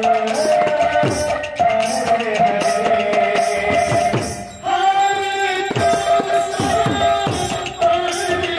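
Kirtan folk music: a male voice singing through a microphone over a two-headed barrel drum whose strokes bend in pitch, with small metal cymbals jingling on a steady beat. The singing breaks off briefly about halfway through and comes back louder.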